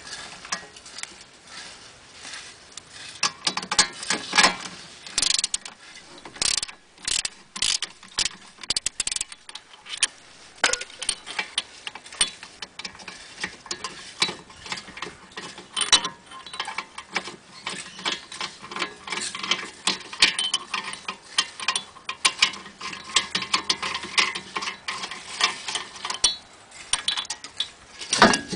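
Irregular metallic clicking and ticking as a steel T50 Torx bit is turned by hand to back out a wheel bearing retaining bolt, the bit and bolt rattling against the cast hub. A louder clatter comes near the end.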